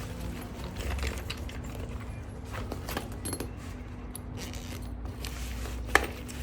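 Light clicks and rattles of a small grinding tool and its grinding stones being handled and shown, with one sharper click about six seconds in, over a faint steady hum.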